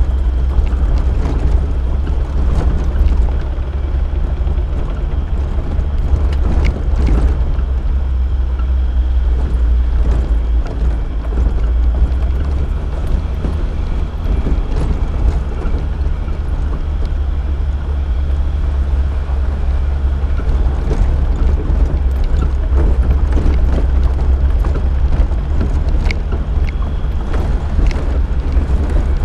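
A Suzuki SJ413's 1.3-litre four-cylinder engine runs steadily as the vehicle drives along a rough dirt trail, under a loud, steady low rumble. Scattered knocks and rattles come from the bumpy track.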